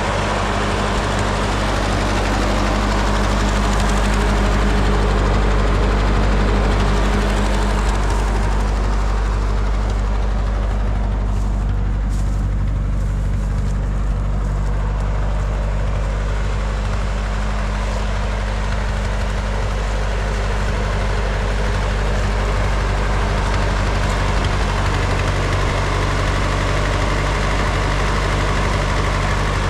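Engine running steadily, with a low, even hum. Its higher hiss thins for a while in the middle and then comes back.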